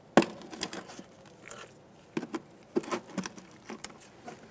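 Plastic push-pin retainer in a wheel-well liner being pried out with a trim tool: a sharp plastic click about a quarter second in, then scattered lighter clicks and taps as the pin's center and outer part are worked free.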